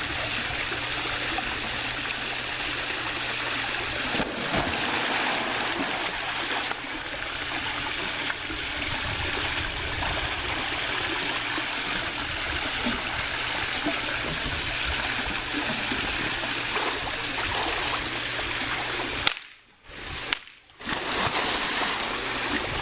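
Swimming-pool water: a steady rush of running and splashing water as someone swims, cutting out briefly twice near the end.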